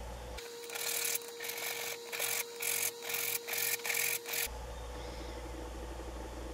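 Quick back-and-forth scraping strokes worked by hand on a metal file, about two a second, for about four seconds and then stopping.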